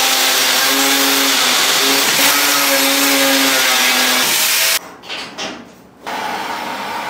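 Handheld angle grinder cutting steel stock under load, its pitch shifting as the cut goes on, then stopping sharply just under five seconds in. A quieter steady whirring starts about a second later.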